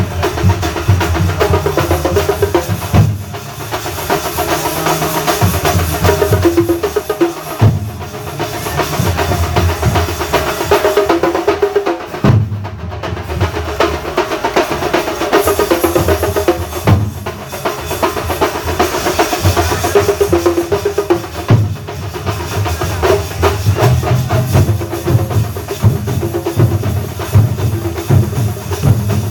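Thambolam percussion ensemble playing: loud, dense, continuous drumming with heavy bass-drum strokes, over a pitched tune in the middle range.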